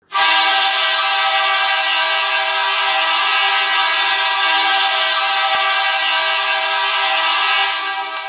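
Edmonton Oilers' goal horn sounding one long, steady, chord-like blast. It starts suddenly and fades out near the end.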